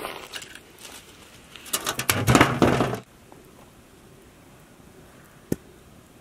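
Dry firewood sticks scraping and knocking as they are pushed into the fire under a large cooking pot, with a burst of clattering about two seconds in that stops abruptly at about three seconds. Then low background with a single sharp click near the end.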